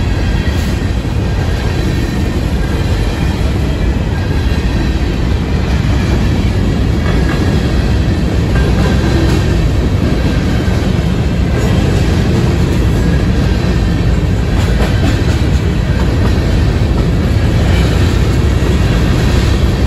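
Covered hopper cars of a freight train rolling past at close range: a loud, steady rumble of steel wheels on the rails, with faint high tones above it.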